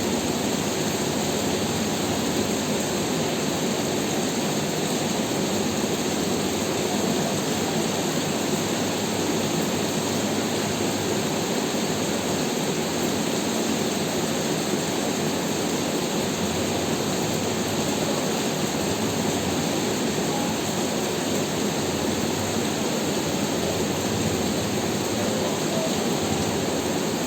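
Rain falling steadily, a dense, even hiss with no pauses.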